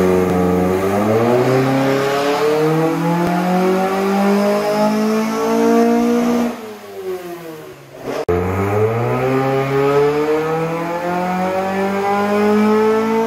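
Mazda MX-5 1.8-litre four-cylinder engine on individual throttle bodies doing full-throttle pulls on a rolling-road dyno: the engine note climbs steadily through the revs, drops away as the throttle is lifted about six and a half seconds in, then climbs again in a second pull from about eight seconds.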